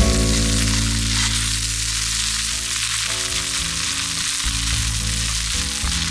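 Alpine leek (gyoja ninniku) and dried red chili sizzling as they stir-fry in a hot pan over a wood fire: a dense, steady hiss.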